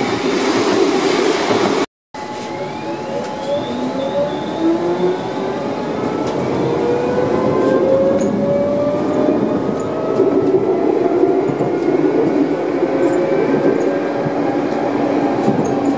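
Tram heard from its driver's cab as it pulls away and gathers speed: the electric traction drive's whine rises slowly in pitch over the steady rumble of the wheels on the rails. The first two seconds are a tram passing at trackside, cut off abruptly.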